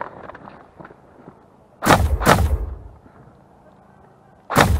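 Specna Arms G36 blowback electric airsoft rifle firing three short bursts close to the microphone: two in quick succession about two seconds in, and another near the end.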